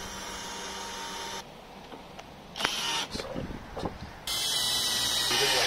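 Cordless drill whirring in short spells as it drives screws into composite decking boards, with a knock about two and a half seconds in.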